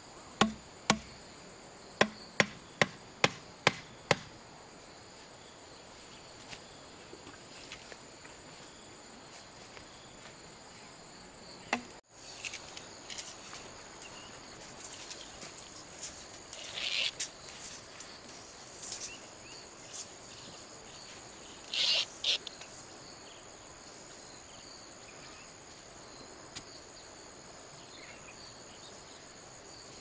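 A machete chops a green bamboo pole: about eight sharp strikes, roughly two a second, stopping about four seconds in. Insects drone steadily and high-pitched throughout, with a few short scrapes and rustles in the grass later on.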